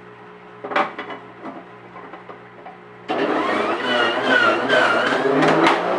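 A sharp clack about a second in, then an electric juicer's motor switches on suddenly about three seconds in and runs under load, juicing oregano leaves, with a whine that wavers in pitch.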